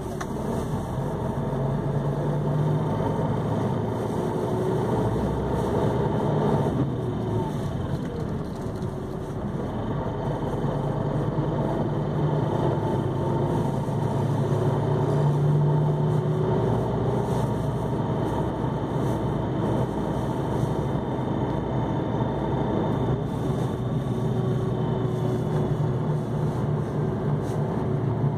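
Mercedes-Benz OH-1628L coach's diesel engine running steadily, its note slowly rising and falling as engine speed changes.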